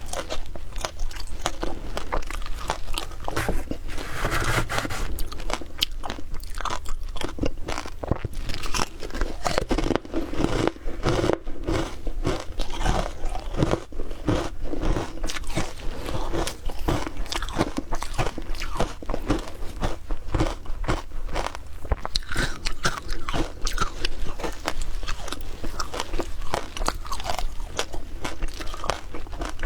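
A person biting and chewing frozen shaved ice, a dense, continuous run of crisp crunches.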